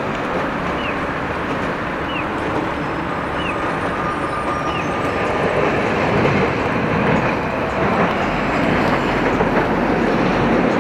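Kumamoto City streetcar running along its street track amid city traffic noise, growing a little louder after about five seconds. A short high falling chirp repeats about every second and a quarter during the first half.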